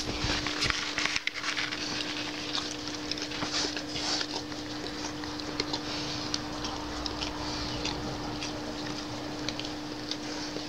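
Dog licking itself: irregular wet clicking and smacking sounds, over a steady low hum.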